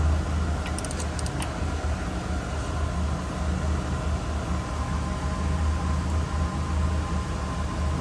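Steady low mechanical rumble, with a few short light clicks about a second in.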